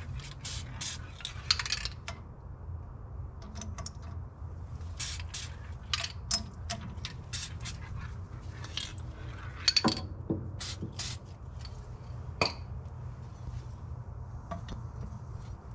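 Several short hisses of a Blaster aerosol lubricant sprayed onto the top of a coilover spring and strut, among light metallic clinks and taps of suspension parts being handled, over a steady low hum.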